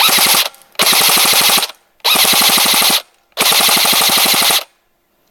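Electric airsoft M4 (Compact SD AEG) on an 8.4-volt battery firing on full auto: four short bursts of rapid, evenly spaced shots from the gearbox cycling, the last about a second long.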